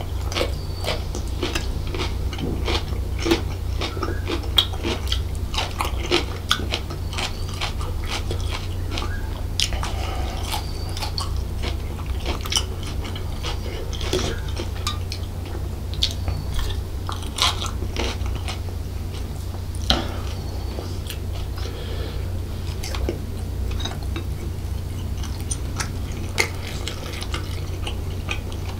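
Close-miked chewing of devilled chicken sausage, with many sharp wet mouth clicks and the occasional tap and scrape of a wooden skewer on the plate. A steady low hum runs underneath.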